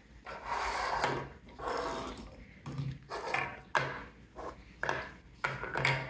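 An Amazon parrot's harsh, raspy calls, with a few sharp knocks of plastic toy cups on the tabletop.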